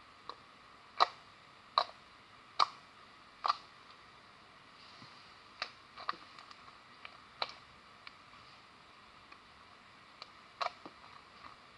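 Slime being pressed and played with, trapped air popping in sharp clicks: four loud, evenly spaced pops in the first few seconds, then fainter scattered ones.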